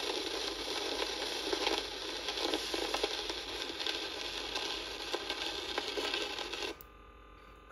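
Surface hiss and crackle of a 1942 home-recorded disc playing on a turntable after the spoken message has ended, with scattered clicks. It cuts off suddenly about seven seconds in, as the stylus is lifted from the record.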